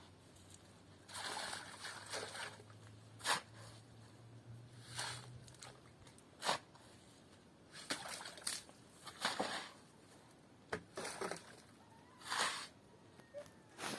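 Water sloshing and splashing in irregular bursts, with a few sharp knocks.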